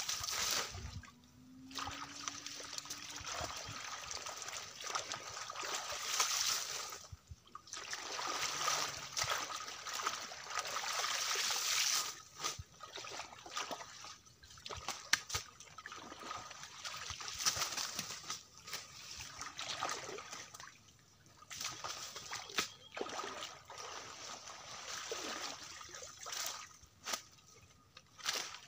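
Pond water splashing and sloshing in irregular surges, with short pauses between them, as water hyacinth is pulled out of shallow water by hand and someone wades in it.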